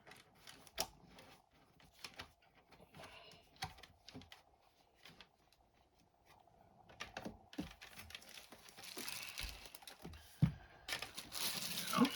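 Hands handling gear: scattered small clicks and taps, then rustling and crinkling that grows louder over the last few seconds.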